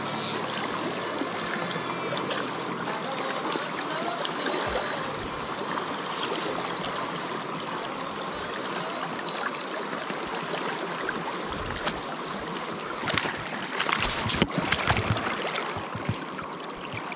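Steady rushing of a flowing stream, with a few louder, irregular knocks and rustles about thirteen to fifteen seconds in.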